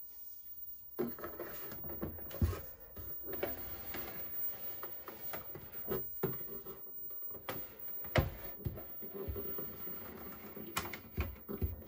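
1978 Saisho TV-12 black-and-white CRT television's speaker hissing with static from an untuned channel, starting suddenly about a second in. Several knocks and clicks from handling of the cabinet come through the hiss.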